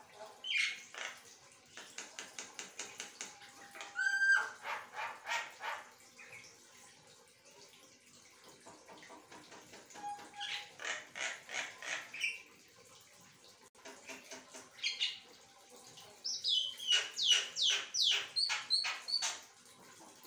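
Javan myna singing in bursts of rapid chattering notes, with a few short whistles between. Near the end it gives a run of falling whistled notes.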